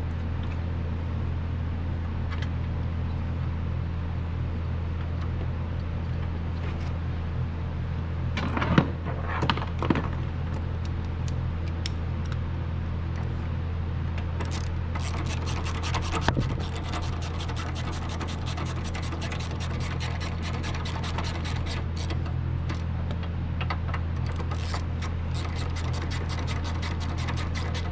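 A steady low mechanical hum, with a few handling knocks and scrapes at about 9, 10 and 16 seconds, and rapid fine clicking through the second half.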